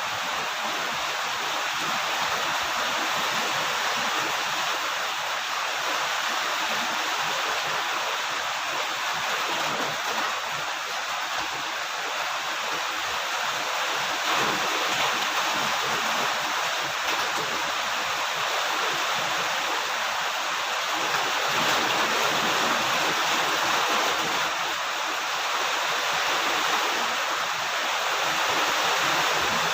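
Steady rain falling: an even, unbroken hiss that holds at the same level throughout.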